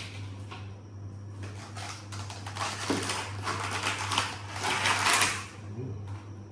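Rustling and clattering of takeaway food packaging being handled and opened, loudest about five seconds in, over a steady low hum.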